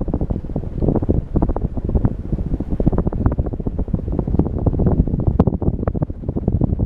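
Casablanca Delta 2 ceiling fan running on high, its downdraft buffeting the microphone with loud, uneven wind noise.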